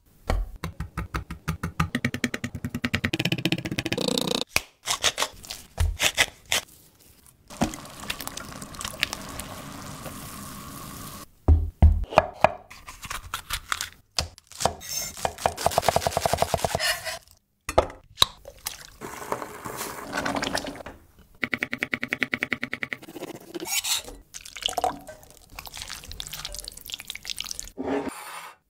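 Food-prep sounds on a wooden cutting board: runs of quick knife strokes and knocks as raw chicken and a bell pepper are cut, a few seconds of steady rushing noise near the middle, and a wooden spoon scraping and stirring a wet filling in a glass bowl near the end.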